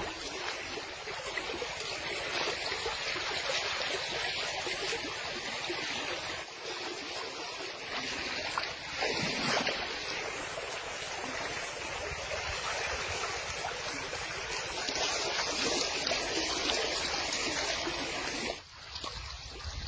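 Water flowing and splashing: a steady rushing noise with a brief drop near the end.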